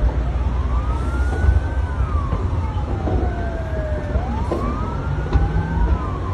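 Emergency vehicle siren wailing in slow sweeps that rise and fall about every three seconds, over a heavy low rumble.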